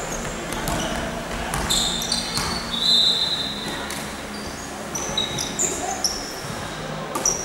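Basketball game on an indoor court: the ball bouncing, and shoes squeaking on the floor many times in short high chirps, with players' voices in the background.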